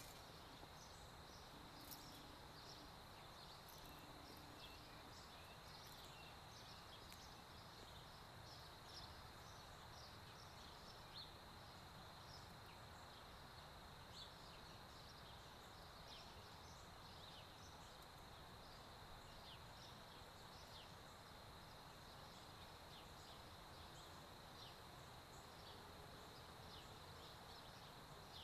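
Near silence: faint summer outdoor ambience, a steady high insect drone with short bird chirps scattered throughout.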